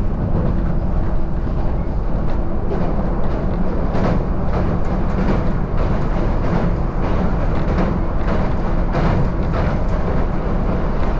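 Toyama Chihou Railway electric train running across a steel truss river bridge, heard from aboard: a loud steady rumble of wheels on rail with irregular knocks.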